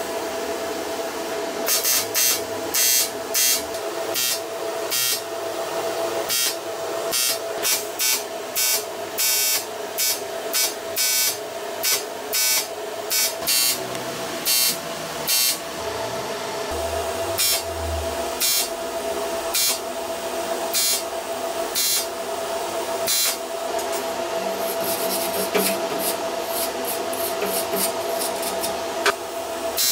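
TIG welding arc on an aluminium motorcycle clutch basket, buzzing in a long series of short bursts, one to two a second, as filler rod is fed in to build up the worn notches in the basket's fingers. A steady hum runs underneath, and the bursts thin out after about twenty-three seconds.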